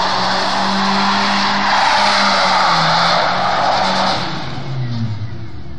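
Ford Thunderbird Turbo Coupe doing a burnout: the rear tyres squeal against the pavement over the engine held at steady high revs. About four seconds in, the squeal dies away and the engine revs fall off.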